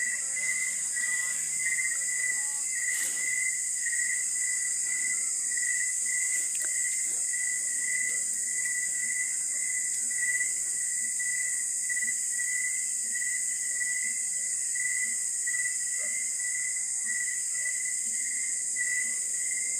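Night insects such as crickets calling steadily: a continuous high chorus with an unbroken, slightly pulsing trill beneath it.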